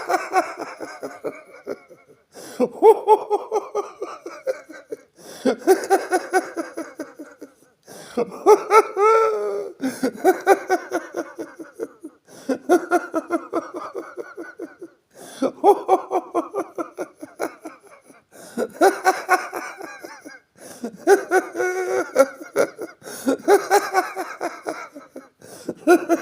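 A person laughing joyfully and heartily in repeated bouts. Each bout is a quick run of high 'ha-ha' pulses, with a short breath-length pause between bouts.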